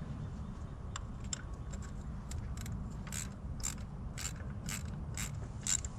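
Socket ratchet clicking as a new spark plug is run down and snugged into the engine's cylinder head, about two clicks a second starting about a second in.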